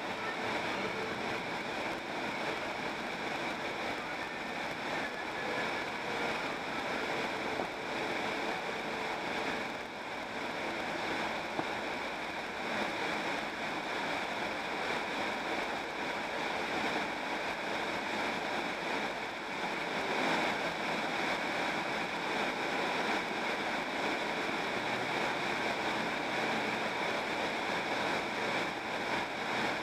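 Steady tyre and wind noise from a car cruising along a paved road, heard from inside the car.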